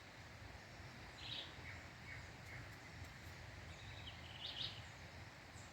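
Faint birdsong: scattered short, high chirps from songbirds, a few about a second in and a quick cluster near the end, over a low, steady rural background.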